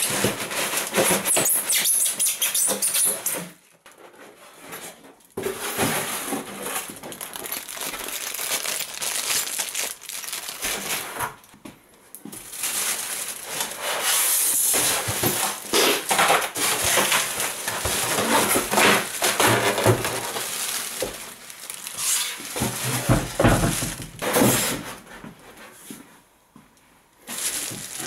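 Clear plastic bag wrapped around a band saw crinkling and rustling as it is handled and pulled about, along with polystyrene foam packaging being moved. The handling goes in irregular spells with short pauses about 4 seconds in, about 12 seconds in, and near the end.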